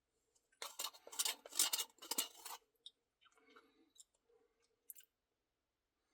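Close-miked eating of a Dairy Queen Turtle Pecan Cluster Blizzard: a loud, crisp crunching and scraping burst starting about half a second in and lasting about two seconds. Softer bursts and a few sharp clicks follow.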